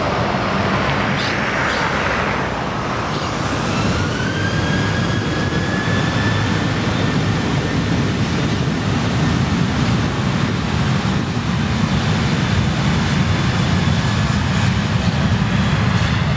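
Boeing 737-700's CFM56-7B turbofan engines spooling up to takeoff thrust on the takeoff roll. A fan whine rises in pitch a few seconds in and then holds steady over a low rumble that grows slightly louder as the jet accelerates.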